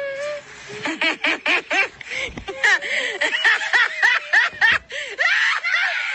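A person laughing hard and high-pitched in a quick string of short laughs, several a second, from about a second in to the end.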